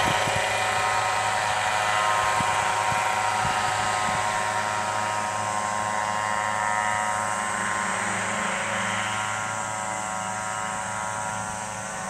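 Small remote-control crop-spraying helicopter droning steadily with a high engine whine as it sprays pesticide, growing a little fainter near the end.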